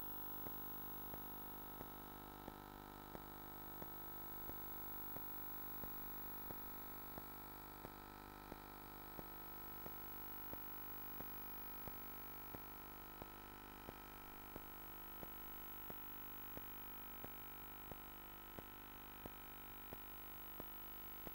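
Faint steady electrical hum made of many fixed tones, with a faint click repeating evenly about three times every two seconds.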